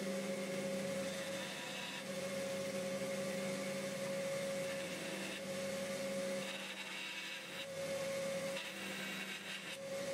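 Bandsaw running with a steady hum, its blade cutting the wedge slot into a wooden axe handle. The higher rasp of the cut comes and goes about four times as the handle is fed in and drawn back.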